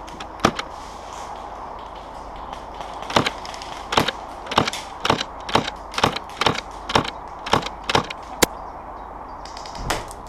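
Airsoft guns firing single shots: one sharp crack, then a run of shots at about two a second for five seconds or so, and one more near the end.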